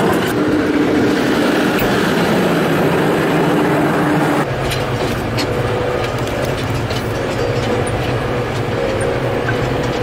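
John Deere baler running, a steady mechanical clatter from its pickup and works. About four and a half seconds in it gives way to a Case tractor's engine running steadily under way, heard from inside the cab.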